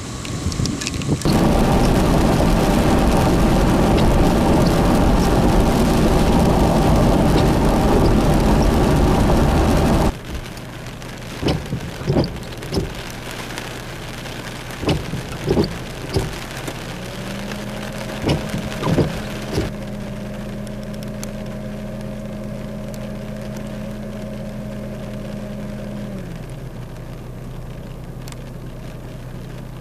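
A loud, steady rush of heavy rain for about nine seconds. Then a quieter vehicle cabin: a low engine hum, scattered taps of raindrops, and a steady tone that comes in near the middle and fades away several seconds later.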